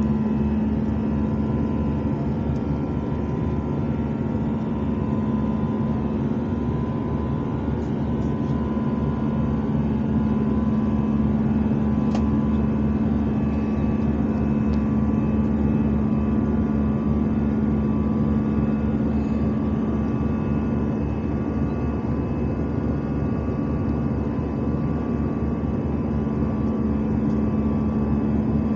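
Airbus A319 cabin noise in flight, heard from a window seat beside the wing engine: a steady rush of jet engine and airflow noise with a constant low hum.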